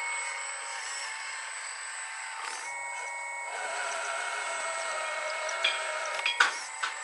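1:14 scale RC model Volvo EC380 excavator's hydraulic pump running with a steady whine, the pitch shifting about two and a half seconds in as the upper structure swings and the boom moves. Several sharp clicks and knocks come near the end.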